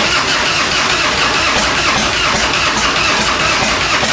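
Harley-Davidson Evolution V-twin on a 1997 Fatboy being cranked over by its electric starter, steadily and without catching; the carburetor is dry of fuel after the bike has sat a while.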